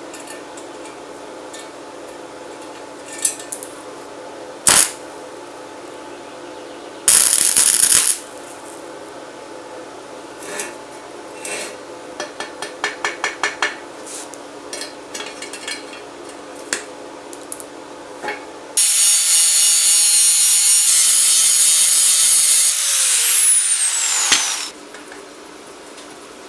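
Hand tools knocking and clicking against metal, then a power tool runs loudly for about six seconds and winds down, its pitch falling before it stops.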